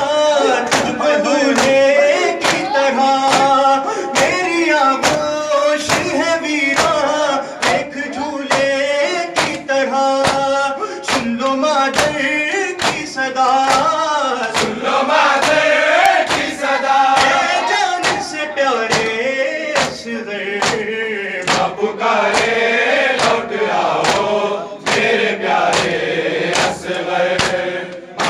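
A male reciter chanting a Shia noha lament into a microphone, with a group of men's voices joining the refrain. Sharp, even slaps of matam chest-beating keep time at about two a second.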